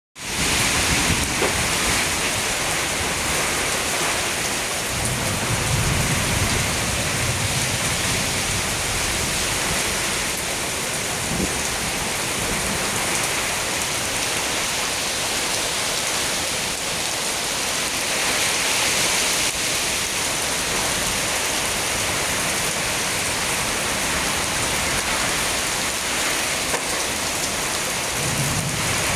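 Heavy rain falling steadily in a storm, a dense even patter on surfaces, with low rumbles of distant thunder about five seconds in and again near the end.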